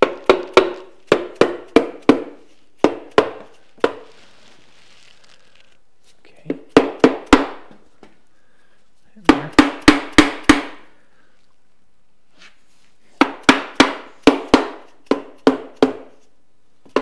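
Orange plastic mallet tapping on the case of an early Volkswagen split-case swing-axle gearbox, driving the case halves together. The sharp taps come in four quick runs with short pauses between them, each ringing briefly in the metal.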